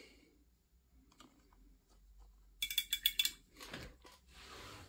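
A quick run of small, sharp clicks and clinks as hard miniature painting holders are picked up and knocked against each other on the desk, followed by a soft rustle near the end.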